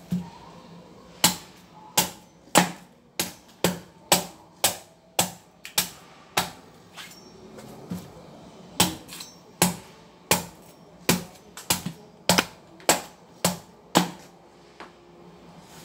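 Hard, sharp strikes on a dwarf coconut's shell, one after another at about two a second with a lull of lighter hits about seven seconds in, as the tough coconut is hacked open.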